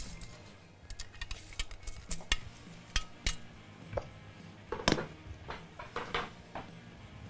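A metal colander and a spatula clinking and scraping against the pot as soaked rice is tipped out of the colander into broth: irregular sharp taps and clinks, the loudest about five seconds in.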